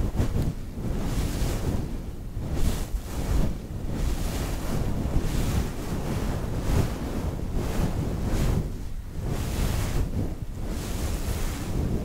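Soft brushes swept across the microphone, giving a rustling, wind-like swish that repeats roughly once a second.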